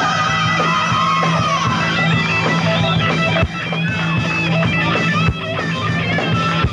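Heavy rock/metal music: a lead electric guitar plays bending, wavering lines over a steady low bass drone, with two hard accents about two seconds apart.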